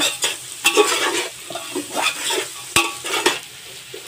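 Metal spoon scraping and knocking against an aluminium pot as diced carrots, beans and onions are stir-fried in oil, with a steady sizzle under the irregular strokes. There is a sharp knock almost three seconds in, and near the end the scraping stops, leaving the sizzle alone.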